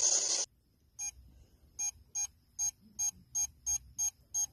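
A steady electronic hiss cuts off about half a second in. From about a second in, an EMF meter beeps in a fast, even pulse of roughly three short beeps a second, the alert of a high reading.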